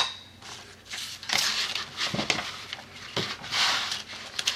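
Thin plastic border stencils being handled on a table: a few short rustling swishes with light clicks and taps in between.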